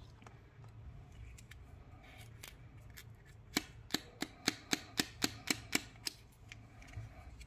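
Clear plastic eyeball candy capsule clicking in the fingers: a run of about ten sharp clicks, about four a second, starting about halfway through, after some faint rustling of plastic candy packets.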